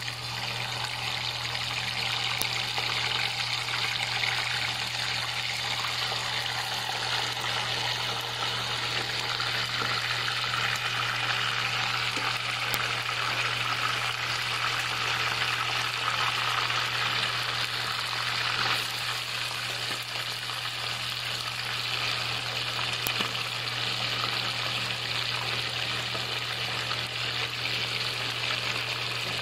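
Chicken pieces frying in hot oil in a pan: a steady, busy sizzle and crackle, with a constant low hum underneath.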